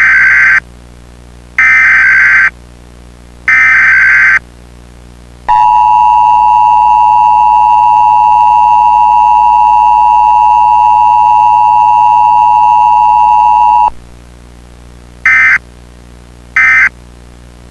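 Emergency Alert System activation tones. Three digital SAME header bursts of about a second each come first, then the two-tone attention signal holds steady for about eight seconds. Three short end-of-message bursts follow, which signal that the alert is over.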